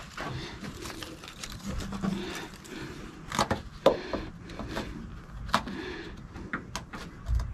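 Scattered light clicks, taps and rustles of hands working a rubber bed seal on the truck bed, with a dull thump near the end.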